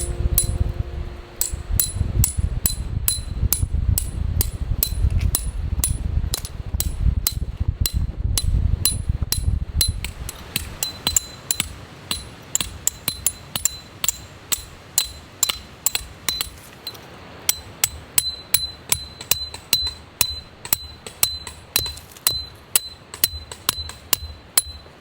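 A hammer striking metal over and over, about two to three sharp, ringing blows a second. A low rumble runs under the blows for the first ten seconds or so.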